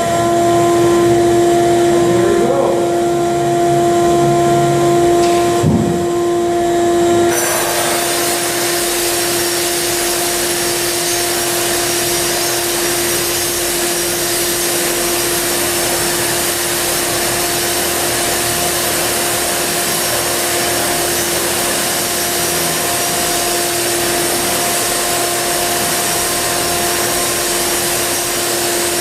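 Ridgid 6 hp shop vac running with a steady whine. About seven seconds in, a Milwaukee diamond cup grinder joins, grinding thinset off concrete with a loud steady rushing noise that holds to the end.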